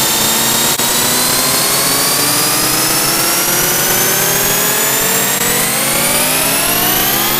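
Digitally edited car horn beep stretched into one loud held tone with many overtones, rising slowly in pitch, with a brief click about a second in.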